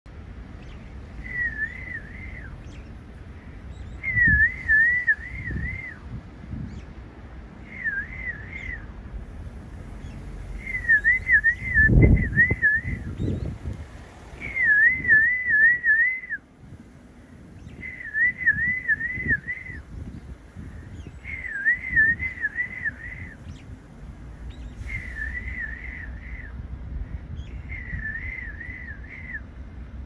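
A person whistling a short warbling phrase of quick up-and-down notes, repeated about nine times, one every few seconds, whistled at a brown-eared bulbul. Low thumps underneath, the loudest about twelve seconds in.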